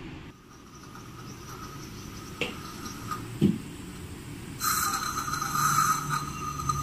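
Dental suction tip drawing air and saliva from a patient's mouth: a loud hiss with a steady whistling tone starts a little past halfway. Before it come two short clicks of instruments against the teeth.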